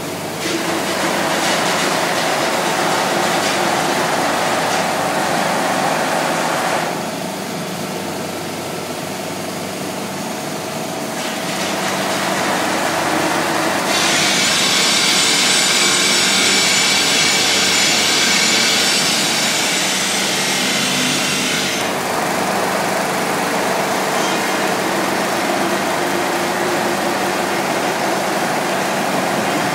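Heavy tunnelling machinery, a multi-boom rock drill rig, running: steady mechanical noise with a low hum. It turns quieter about seven seconds in and picks up again a few seconds later. A louder, hissing stretch runs from about fourteen to twenty-two seconds in.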